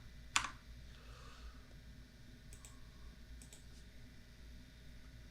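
A few clicks at a computer: one sharp click just under half a second in, then fainter clicks around two and a half and three and a half seconds in, over quiet room tone.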